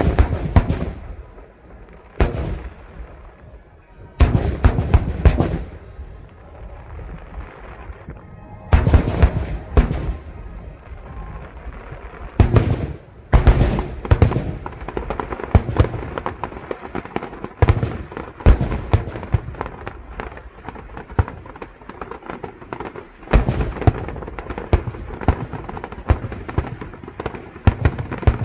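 Fireworks display: aerial shells bursting with loud sharp bangs in clusters every few seconds, and a dense crackling between the bursts.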